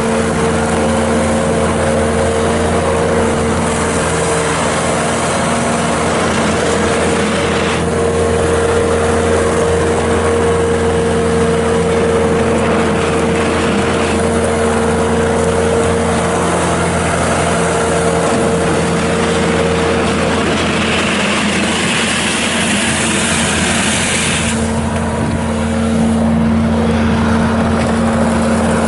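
2012 Bobcat S650 skid steer's Kubota V3307 four-cylinder turbo diesel running steadily under throttle. Its note and hiss shift several times as it goes.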